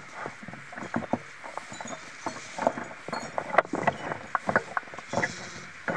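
Irregular light clicks and knocks, small loose objects rattling in gusty wind, over a faint steady rush.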